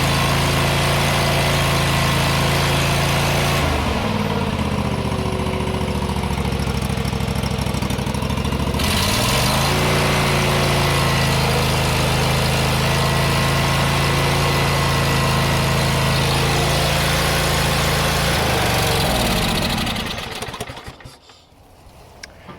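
Kawasaki FH601V V-twin engine of a John Deere GT245 lawn tractor running steadily with its air cleaner removed. It slows to a lower speed about four seconds in and speeds back up about nine seconds in. It is then shut off and winds down to a stop near the end. Running well without the air filter is, to the owner, confirmation that the engine has been running rich, with the carburettor dumping fuel into the intake.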